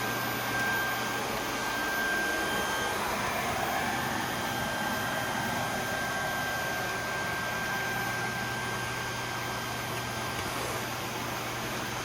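Vacuum cleaner running steadily, a constant high whine over the rush of its motor.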